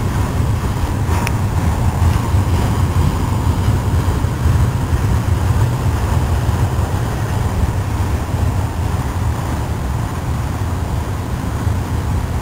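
Freight train's cars rolling past on the rails: a steady low rumble of wheels and trucks, with one brief click about a second in.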